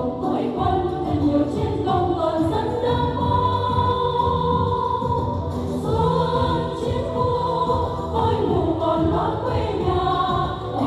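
A women's vocal group singing together through microphones and a PA, over instrumental accompaniment with a steady low bass line.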